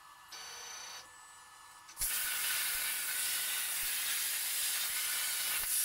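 CNC plasma torch cutting steel plate: a steady loud hiss of the arc and air that starts suddenly about two seconds in, after a short, quieter burst with a faint high whine about half a second in.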